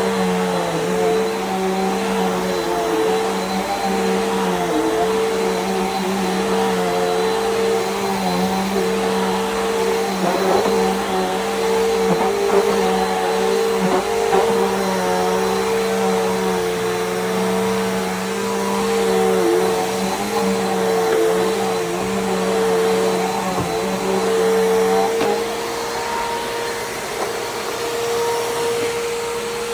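Bissell PowerGroom bagless vacuum cleaner running steadily with a constant motor whine and wavering tones as it is pushed over the floor. A lower hum drops away near the end, leaving the whine alone.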